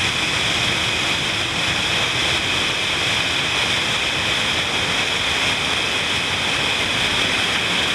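Spring water gushing out of a cave mouth as a small waterfall and splashing onto rocks, a steady rushing splash.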